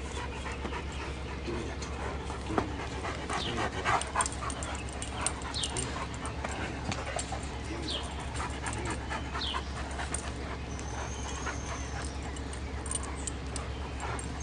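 Great Danes playing and tugging at a stick, making dog sounds and scuffling, over a steady low hum. Short high falling chirps come through several times.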